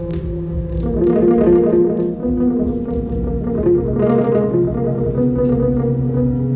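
Ambient electronic music played on synthesizers: a low sustained drone under held notes that shift from one pitch to the next every second or so.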